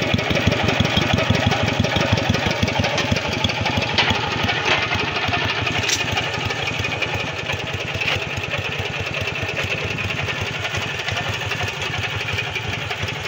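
Bucher two-wheel tractor's air-cooled engine running steadily, its exhaust beating in a fast, even rhythm.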